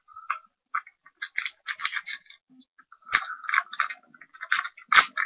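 Packaging of a Yu-Gi-Oh! Premium Gold card box crinkling, scraping and tearing as it is opened by hand. It comes as a string of short scratchy rustles, with sharper clacks about three seconds in and again near the end.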